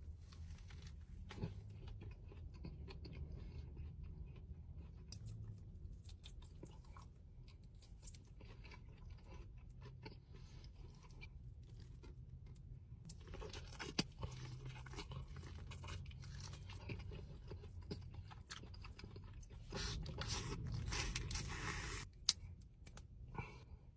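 A person chewing and biting food up close, with crunching and scraping. The eating grows louder for a couple of seconds near the end.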